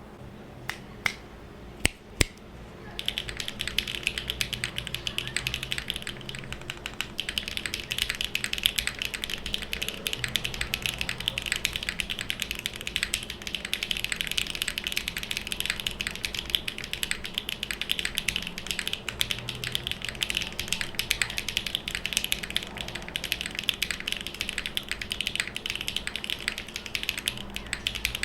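Typing on a TKD Cycle7 mechanical keyboard, which has an aluminium case, a full aluminium plate, no foam, linear switches and KeyKoBo Retro Mixed Lights keycaps. A few separate keystrokes come first, then steady fast typing begins about three seconds in.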